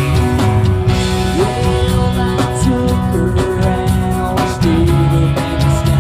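Live band playing a rock song: guitars and drum kit, with a melody line sliding between notes.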